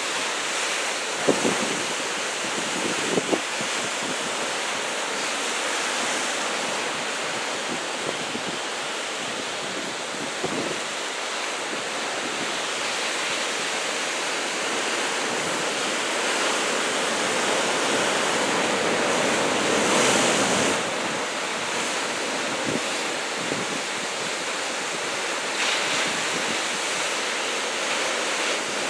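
Heavy typhoon swell, waves about two metres high, breaking on the shore in a steady wash of surf, with wind buffeting the microphone. A wave crash swells louder about twenty seconds in, and a few short knocks of wind on the microphone come in the first few seconds.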